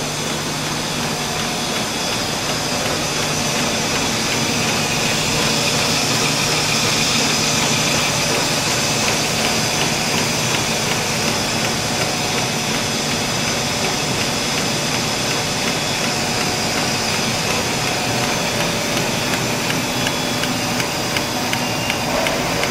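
A three-piece aerosol can-making line running at its Soudronic ABM 150 resistance welder. It makes a steady machine din with a few held tones and fast, dense ticking.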